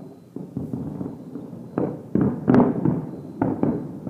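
Aerial fireworks shells bursting at a distance: about half a dozen booms in irregular succession, each trailing off in an echo, the loudest about two and a half seconds in.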